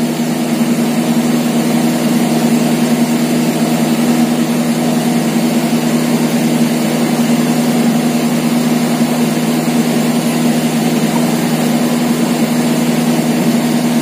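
Steady mechanical hum of a running motor, with one strong low tone that does not change.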